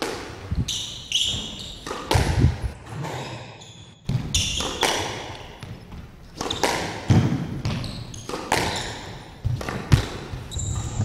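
Squash rally: the ball is struck by rackets and smacks off the walls and glass of the court, a string of sharp impacts, with short high squeaks from the players' shoes on the wooden floor.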